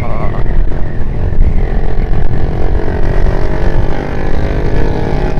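Motorcycle engine running while riding, under a heavy low wind rumble on the microphone. The engine note drops slightly over the first couple of seconds, then holds steady.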